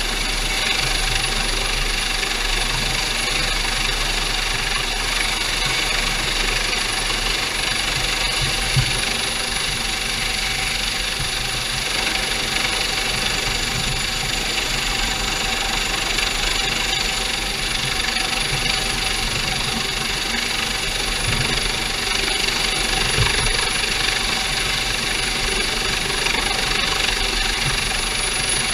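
Steady, loud engine noise from a Coast Guard MH-65 Dolphin helicopter hovering low over a small boat, mixed with the boat's own engines running underway. A high steady whine rides over the rumble.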